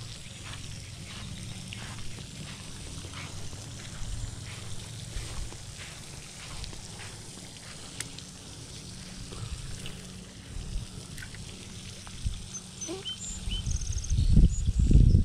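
Regular footsteps of a person walking across a mown lawn, over a steady low rumble that swells much louder near the end.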